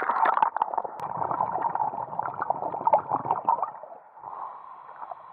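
Water splashing and bubbling around an action camera as it plunges under the sea surface, a dense crackle of bubbles that dies down after about three and a half seconds into a muffled underwater hiss.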